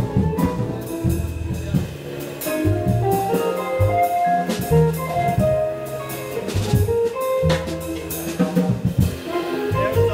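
A jazz quartet of vibraphone, guitar, upright bass and drum kit playing live, with bass notes underneath, frequent cymbal and drum strikes, and held melody notes on top.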